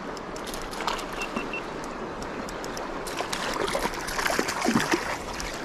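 Fast creek water rushing, with a hooked rainbow trout splashing and thrashing at the surface, most heavily from about three to five seconds in.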